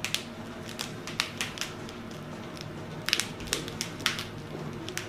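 Light rustling with scattered small clicks and crackles, from hands moving through a person's hair and over her clothing to set up an adjustment.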